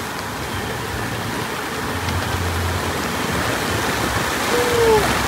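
Steady rushing hiss from a stainless crawfish boiler at the boil over its propane burner, mixed with falling rain. A short falling tone sounds about four and a half seconds in.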